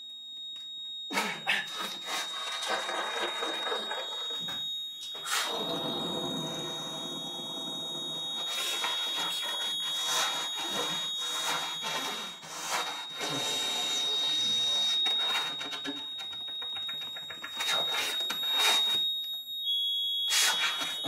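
Free-improvised music from a trio of saxophone, accordion and drums with objects. After a sparse first second, dense layered sustained tones and scraping noise come in, broken by several sharp strikes, over a steady high tone that holds throughout; it thins briefly just before the end.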